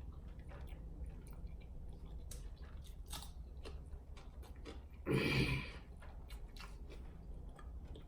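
Close-miked chewing and mouth sounds of someone eating rice, sausage and cucumber, with many small wet clicks and smacks, and one louder half-second burst about five seconds in.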